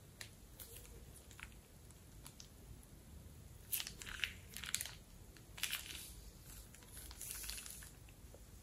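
Hand squeezing and crumpling a purple latex balloon and a plastic piping bag full of liquid slime colour: short crinkly, crunchy rustles, in several bursts from a few seconds in, with a few small clicks.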